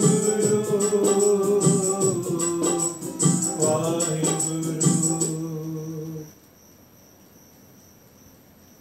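Devotional hymn singing over a steady held-note accompaniment, with a regular jingling beat a little faster than once a second. The music stops abruptly about six seconds in, leaving quiet room tone.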